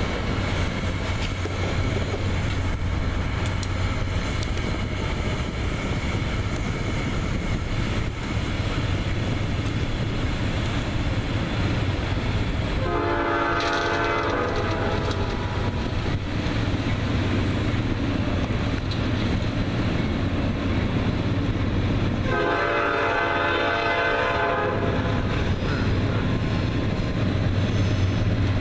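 Nathan P5 five-chime air horn on the lead Norfolk Southern GE Dash 9-40CW locomotive sounding for a grade crossing: two long blasts about ten seconds apart, and a third beginning right at the end. Under it runs the steady low rumble of the approaching diesel freight train.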